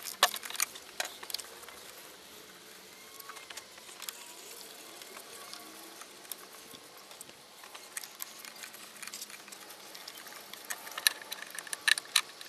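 Socket ratchet clicking in short bursts as the 8 mm bolts holding the fuel filter's retaining plate are undone, with scattered small metallic clicks between the bursts. The clicking comes near the start and again near the end.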